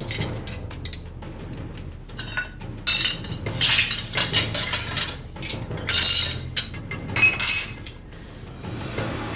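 Dishes and glassware clinking and knocking together as they are handled, with a series of bright ringing clinks that are loudest in the middle stretch.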